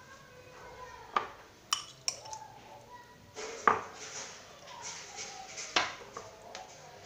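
A metal spoon clinking and scraping against a round metal baking tray while spreading a soft filling. About five sharp clinks, some with a short ring, with soft scraping between them.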